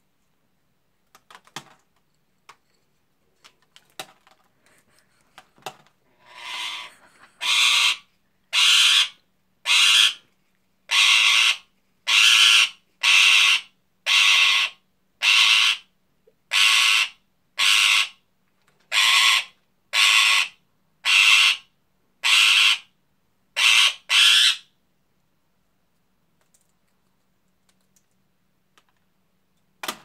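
Indian ringneck parakeet squawking over and over, about one loud, harsh squawk a second for some eighteen seconds, after a few faint clicks.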